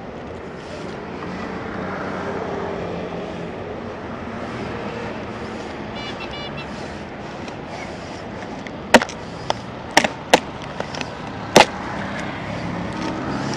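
Steady street traffic noise, swelling slightly about two seconds in. Later come several sharp clicks and knocks from handling, likely a key and parts of a parked motor scooter.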